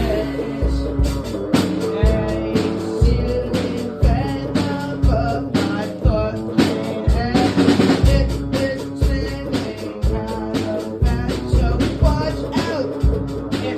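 A small rock band playing: a sung vocal over guitar, with a drum kit keeping a steady beat of kick-drum and snare hits.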